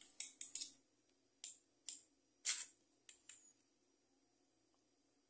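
Faint short metallic clicks and scrapes as the sheet-metal retaining clip of a fan motor's bearing bushing is pressed and crimped down into the bearing housing. Three come close together in the first second, then several single ones over the next two and a half seconds.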